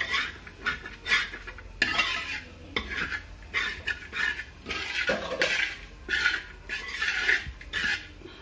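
A metal spoon scraping and clinking against a pan or dish in repeated, irregular strokes, about two a second, as food is stirred or served.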